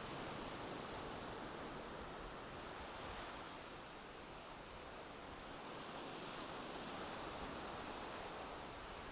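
Surf washing on a beach: a steady rushing that swells and eases slightly.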